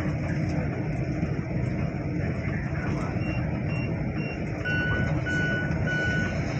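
A bus running along a road, heard from inside the cabin as a steady engine and road rumble. About halfway through, an electronic warning beeper starts: a few short high beeps, then three longer, lower beeps.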